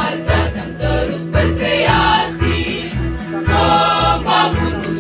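School choir of girls and boys singing together in parts, with a steady low beat pulsing about twice a second underneath.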